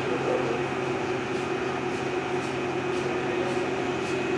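Hardinge HLV-EV tool room lathe running under power with the auto feed engaged: a steady machine hum with a faint tick about twice a second.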